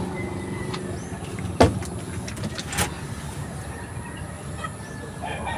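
A vehicle engine idling steadily, with two sharp knocks, one about one and a half seconds in and one near three seconds.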